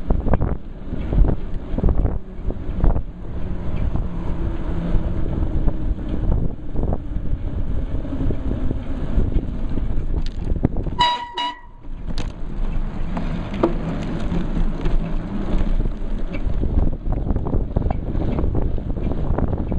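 Wind buffeting and rattling knocks from a camera mounted on the frame of a moving mountain bike. About halfway through the noise drops for a moment and a brief high tone with overtones sounds.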